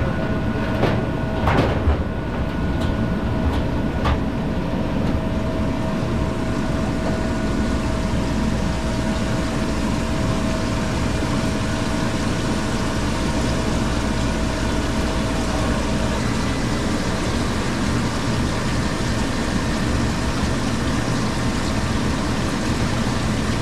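Hoshizaki ice machine running with its newly replaced compressor: a steady mechanical hum with a few sharp clicks in the first few seconds, and a steady tone that stops about two-thirds of the way through.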